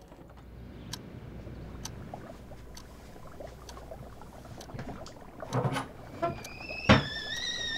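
Kitchen handling sounds over a low steady rumble: small knocks, a short clatter of dishes being taken from a cupboard shelf about five and a half seconds in, then a sharp clink near the end. A steady high tone starts just before the clink and carries on.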